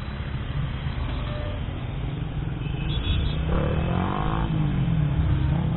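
Motorcycle ride in traffic: steady engine rumble and road noise, with an engine note that rises and then falls about three and a half seconds in.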